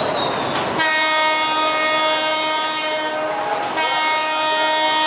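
Train horn sounding two long, steady blasts over the noise of a passing train. The first blast starts about a second in, and the second follows a short break past the middle.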